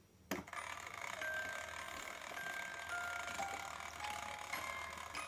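Clockwork mechanism of a taxidermy rabbit automaton starting with a click, then running with gear and ratchet noise under a slow sequence of single chiming notes at different pitches.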